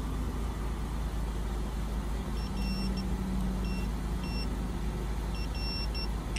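Buick LeSabre's 3.8-litre V6 idling with a steady low rumble. Faint short high-pitched beeps come and go from about two seconds in.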